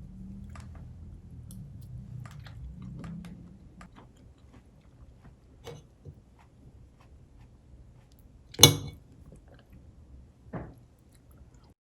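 Light clicks and taps of handling things in a kitchen, with one sharp loud clack about two-thirds of the way in and a smaller knock two seconds later. A low hum sits under the first few seconds.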